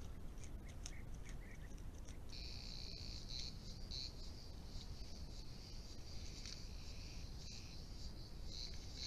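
Insects shrilling steadily in a high, pulsing chorus that starts about two seconds in, over the low hiss and rumble of a trail camera's microphone. Before it, a few faint clicks and short chirps.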